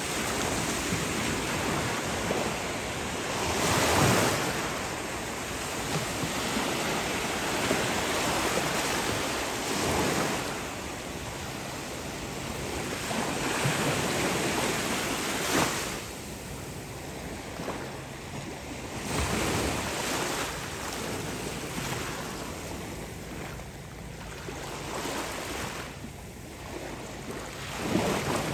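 Small ocean waves washing onto a beach, the surf swelling and fading every few seconds, with wind rumbling on the microphone.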